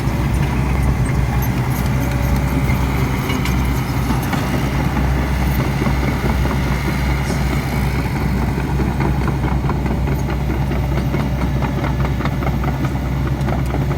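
Diesel engine of an excavator running steadily with a deep hum, with light clanks and rattles that grow more frequent in the second half.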